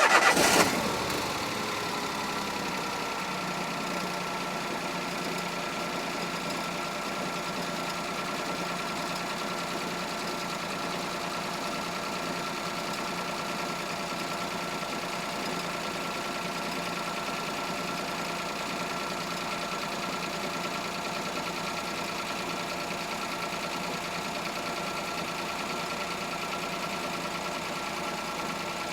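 1-litre petrol car engine catching: a brief loud flare right at the start, which drops within a couple of seconds into a steady idle, with a thin high whine over it.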